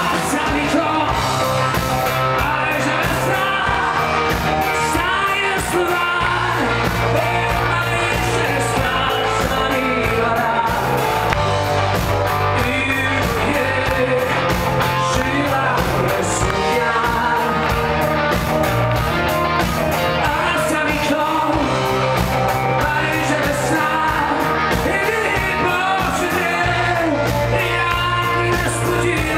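Live rock band playing a song with a male lead vocal over electric guitar, drums, bass and keyboard, loud and continuous.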